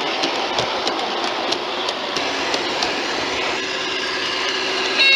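Garden-scale Train Line Deutz model diesel locomotive running, its Dietz sound module playing a diesel engine sound, with the wheels clicking over rail joints about three times a second. The clicks fade out after about three seconds, and a loud high steady tone cuts in right at the end.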